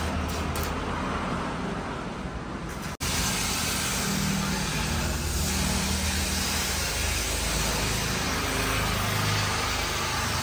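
An engine running steadily with a low hum and broad mechanical noise, cut off for an instant about three seconds in.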